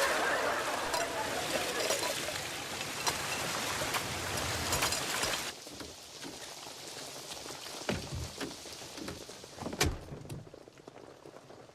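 Heavy rain pouring, which drops off abruptly about five and a half seconds in to a lighter patter, with a few dull thumps near the end.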